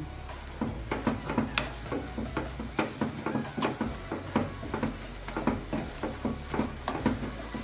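Wooden spoon stirring shredded chicken filling in a nonstick pot as it sautés, scraping and knocking against the pot in quick repeated strokes, about three or four a second.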